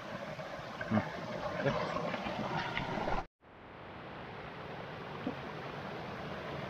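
Forest stream running over rocks, a steady rush of water, with a few soft knocks in the first half. The sound cuts out completely for a moment about halfway through and the water noise fades back in.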